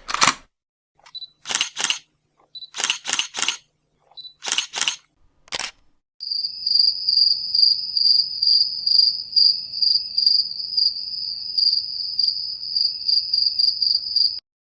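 A camera shutter clicking several times, often in quick pairs, followed by a cricket chirping: a steady high-pitched trill with a regular pulse that lasts about eight seconds and stops shortly before the end.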